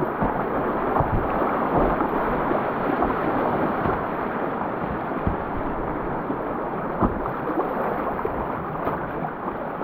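Whitewater rapids rushing steadily around a kayak, with a few short knocks through the torrent.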